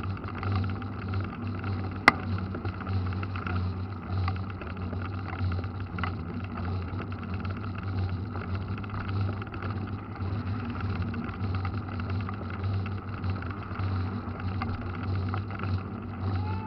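Mountain bike riding along a wet road: steady wind rumble on the microphone and tyre noise, with a single sharp click about two seconds in.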